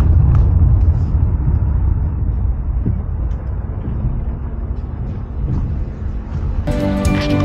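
Steady low rumble of a car driving along a road, engine and tyre noise together. Music comes in near the end.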